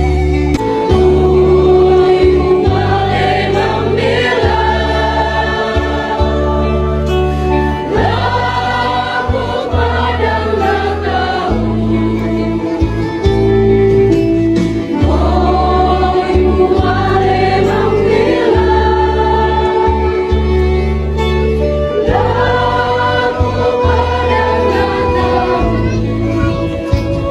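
Background music: a choir singing a Christian hymn in long phrases over held low notes.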